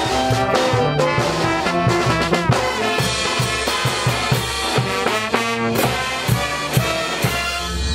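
Peruvian banda show brass band playing a marinera: trumpets, trombones and sousaphones over timbales, bass drum and crash cymbals, ending on a held note near the end.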